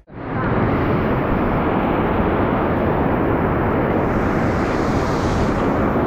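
Steady, dense rush of a large waterfall's falling water, starting abruptly and turning brighter and more hissy about four seconds in.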